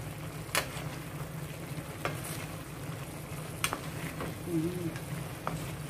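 Wooden spatula stirring and tossing pancit canton noodles and vegetables in a non-stick frying pan over a faint sizzle, with about six short, sharp knocks of the spatula against the pan.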